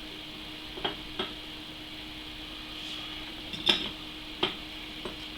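Small metal parts of an EK-Supremacy EVO CPU water block clinking and tapping together about five times during reassembly, the loudest a little past halfway, over a steady faint hum.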